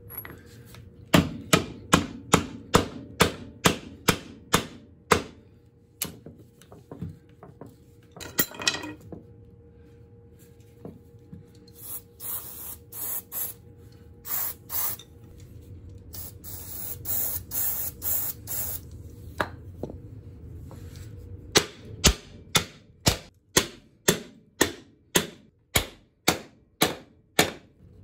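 Quick, evenly spaced hammer blows on steel, about two to three a second, banging a stuck bracket off an old strut, in two runs near the start and near the end. In between come short hissing bursts of an aerosol spray.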